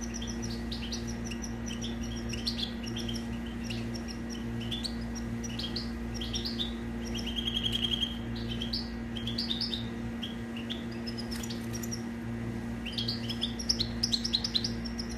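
European goldfinch singing a continuous twittering song of quick chirps, with a fast, even trill about halfway through and a denser burst of notes near the end. A steady low hum lies underneath.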